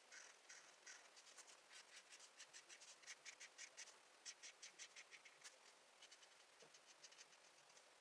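Quiet, rapid back-and-forth scratching of a colouring pen shading on paper, about four to five strokes a second, growing fainter after about six seconds.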